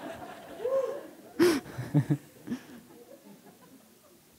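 Scattered audience laughter with a louder outburst about a second and a half in, dying away after about three seconds.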